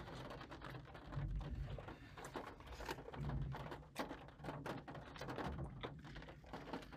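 Rain tapping on a car's windshield and roof, heard from inside the car: scattered light, irregular ticks over a low rumble.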